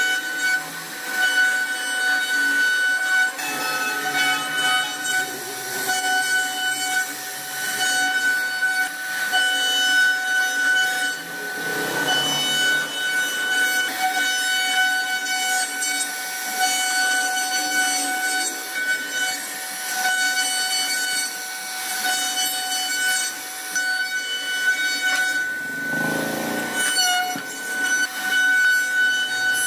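CNC router spindle whining steadily at a constant pitch while its carving bit cuts into a wooden panel, with the rough rasp of the cutter chipping wood. The cutting noise grows louder twice, about twelve seconds in and again near the end.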